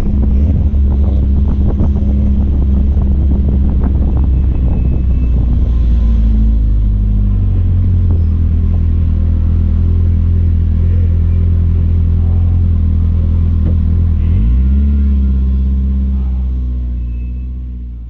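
BMW E30 rally car's engine running at low revs while the car rolls slowly, with a dip and rise in engine pitch about fourteen seconds in. It fades out near the end.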